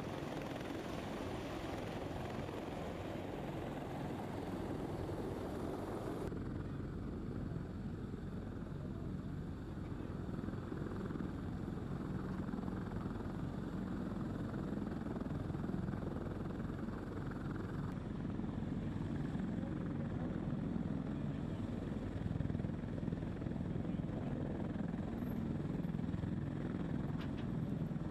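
CH-53 heavy transport helicopter running on the ground with its rotors turning: a dense, steady rotor and turbine roar. About six seconds in it gives way to a lower, duller steady rumble.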